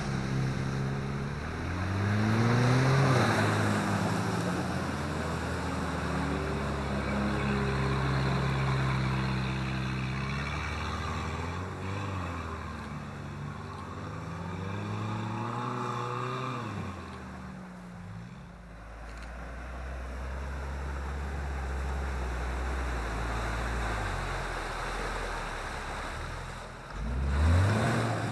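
Off-road SUV engine revving up and down repeatedly as it pulls along a rough track, with a sharp rev near the end.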